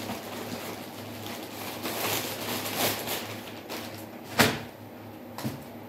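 Plastic mailer bag and packaged t-shirts rustling and crinkling as they are handled and unpacked, with one sharper crackle about four and a half seconds in.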